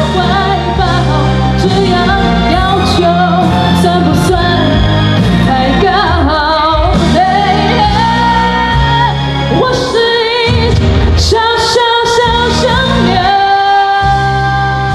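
A young woman singing a song into a handheld microphone over instrumental accompaniment. She holds long notes with vibrato.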